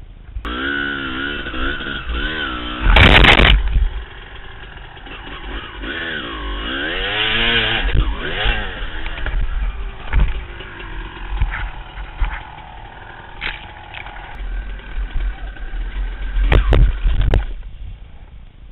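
Two-stroke dirt bike engine, a Honda CR250, revving up and down repeatedly on rough ground, with a loud knock about three seconds in. Near the end there are several heavy knocks as the bike goes down in a crash.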